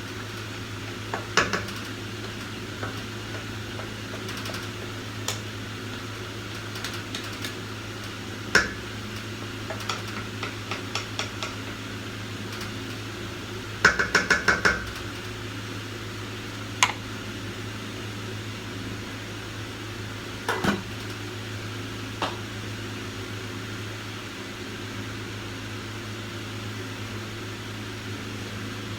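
Pots, pans and utensils clinking and knocking now and then, with a quick run of about five ringing clinks about halfway through, over a steady low hum.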